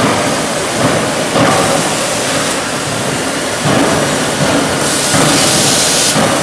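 Loud din of a forging shop floor: machinery running, a dense noise with no single tone that swells and eases every second or so.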